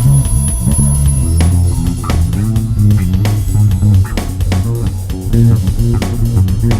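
Bass guitar played solo in a loose, improvised line of low plucked notes.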